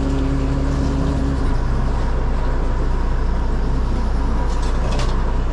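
Fishing boat's engine running steadily, a low drone whose note changes slightly about a second and a half in. A few light clicks near the end.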